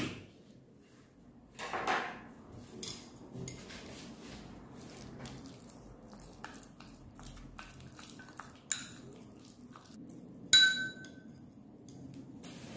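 Wooden chopsticks stirring minced pork in a ceramic bowl, tapping and scraping the bowl with scattered light clicks. One louder ringing clink against the bowl comes near the end.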